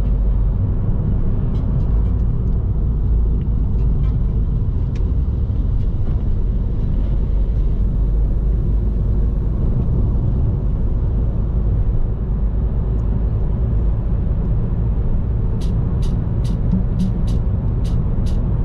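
Steady low rumble of a vehicle driving along a road, engine and tyre noise. A run of quick, sharp ticks comes in near the end.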